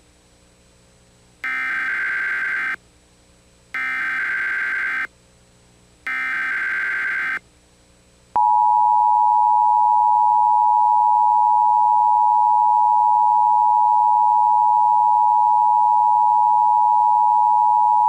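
Emergency Alert System header: three harsh electronic data bursts of about a second each, then, about eight seconds in, the steady two-tone attention signal. It signals that an emergency warning broadcast is about to follow.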